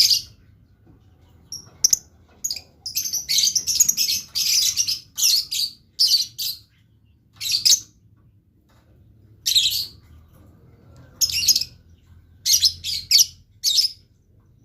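Lovebird chattering in bursts of shrill, high-pitched chirps with short pauses between them; the busiest run comes about three to seven seconds in.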